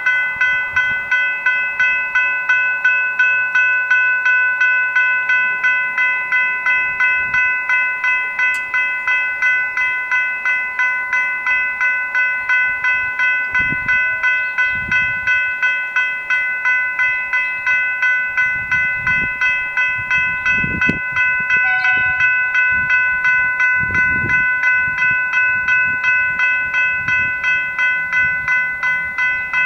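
Level-crossing warning bells, General Signals Type 3 electronic bells, ringing in rapid, evenly repeated strikes from the moment the crossing activates. They signal that a train is approaching while the boom gates lower.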